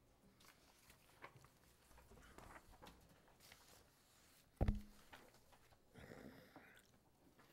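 Faint paper handling and small clicks at a meeting table, with one short, loud thump near the desk microphone about four and a half seconds in.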